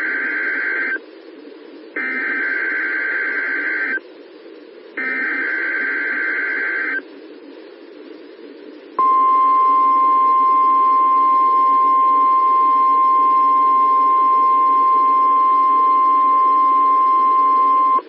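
NOAA Weather Radio alert test: buzzy SAME digital header bursts about a second apart, then about nine seconds in the steady 1050 Hz warning alarm tone, held to the end. This is the weekly test of the weather radio's alarm tones, heard over steady radio hiss.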